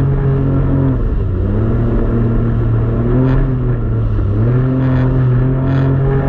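Jet ski engine running under way, its pitch dropping slightly about a second in and rising again around four and a half seconds in, with a few short sharp hits near the end.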